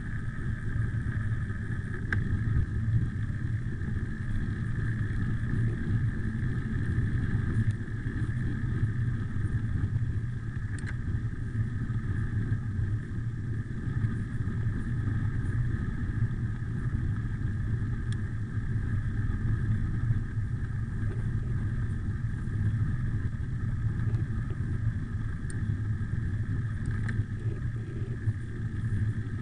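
Wind buffeting the microphone of a handlebar-mounted camera, mixed with a road bike's tyres rolling on asphalt, while coasting downhill at speed: a steady rumble throughout.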